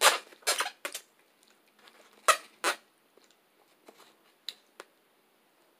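Food being handled by hand in a foam takeout container: a handful of short scraping, rustling sounds in the first three seconds as fingers pull apart injera and rub the container, then a couple of faint clicks.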